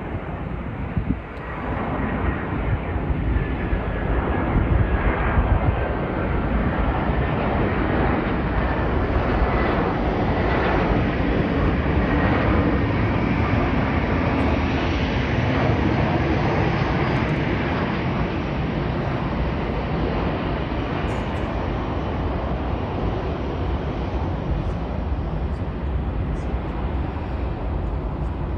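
Jet airliner's engines passing as a broad rushing roar, with a faint high whine. The noise swells to a peak about halfway through and then slowly fades.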